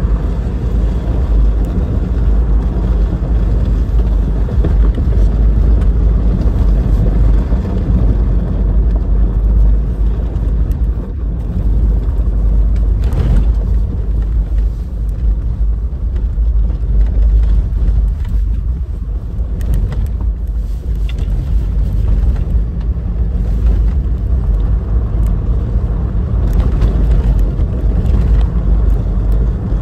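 Inside the cabin of a 2018 Toyota 4Runner driven fast on a dirt road: a loud, steady low rumble of tyres on dirt and gravel and the engine running. A few brief knocks come from bumps or stones, about a third of the way through and again past the middle.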